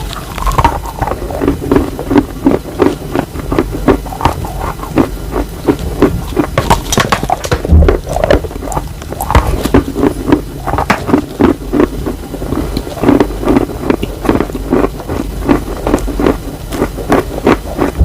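Close-miked chewing of wet chalk: a steady run of short, crisp crunches, several a second.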